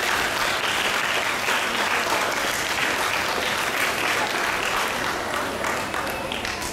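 Audience applauding steadily in a hall, the clapping tapering slightly near the end.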